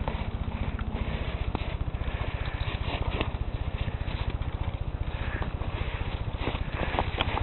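A Siberian husky nosing and mouthing a small toy in snow, making light scattered clicks and rustles, with a sharper click near the end. Under it runs a steady low rhythmic thrum of many beats a second, like a small engine running.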